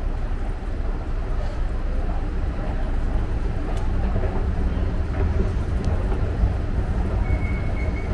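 Escalator running, a steady low rumble and hum while riding it, with a few faint clicks and a brief high-pitched tone near the end.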